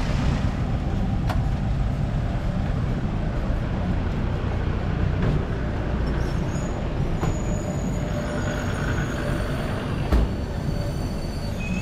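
4x4 off-road vehicle driving, its engine and running noise a steady low rumble, with a sharp knock about ten seconds in.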